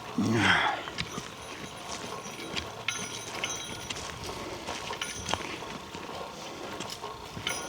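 Footsteps of people walking on a forest trail, scattered crunches over a steady outdoor hiss, with one brief louder sound about half a second in.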